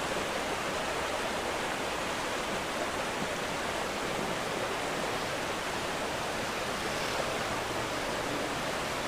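Steady, even hiss with no voice in it: background noise of the mosque's microphone and sound system while nobody speaks.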